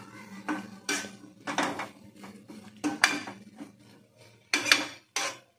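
A metal spatula stirring and scraping diced potatoes, onion and ground spices around a non-stick kadai, giving a run of uneven scrapes and taps against the pan. The strongest strokes come about three seconds in and again near the end.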